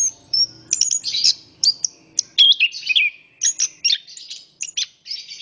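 Chestnut-capped thrush (anis kembang) singing a fast, varied song of sharp high notes and slurred whistled phrases. Near the end it breaks into a rapid run of repeated notes.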